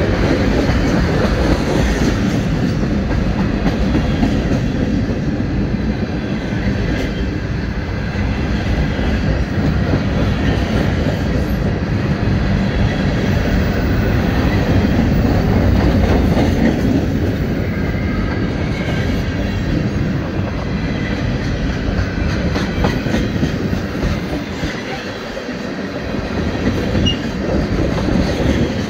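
Freight train of tank cars and covered hopper cars rolling past close by: a steady rumble of steel wheels on rail with clickety-clack over the rail joints.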